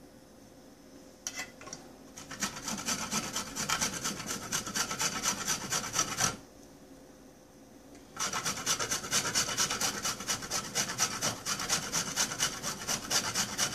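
A lump of cacao brick rubbed rapidly back and forth over a handheld metal grater, a rasping scrape of about four strokes a second. It starts about two seconds in, stops for about two seconds in the middle, then resumes.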